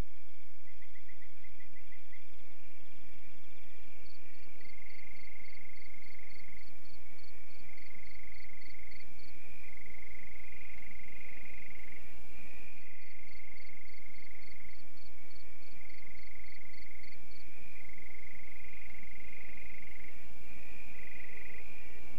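A night chorus of frogs and insects: a steady high trilling, joined twice by a higher call ticking about three times a second. It starts and stops abruptly.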